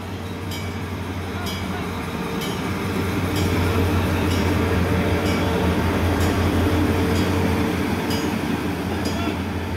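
Diesel-electric locomotive and passenger coaches of Egyptian National Railways passing close by: the engine's steady drone swells to its loudest midway and then eases off, with a sharp wheel clack over the rail joints about once a second as the train rolls past.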